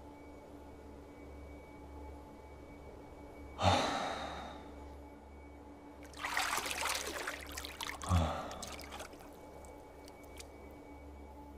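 A man sighing and breathing out audibly three times, each breath fading away over about a second.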